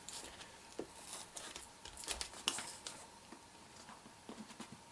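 A dull knife scraping and picking at a mailed package, with faint crinkling and tearing of the packaging and a few sharper clicks.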